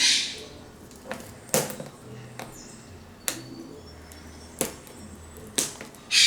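A shrink-wrapped cardboard retail box being handled and turned over: a few sharp knocks and taps, with brief crinkly rustles of the plastic wrap at the start and near the end.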